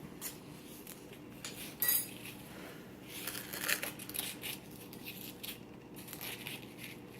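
Digging tool scraping and tapping at a wetted plaster dig-kit block: a run of short scratches and clinks, with one sharper ringing clink about two seconds in and a busier spell of scraping a little later.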